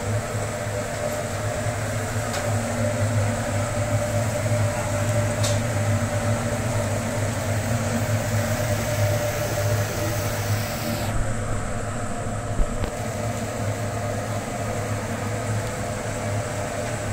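A steady mechanical drone, a constant low hum with a hiss over it, beside a smoking charcoal grill of meat skewers. The hiss thins out for a couple of seconds past the middle, and a single short knock comes soon after.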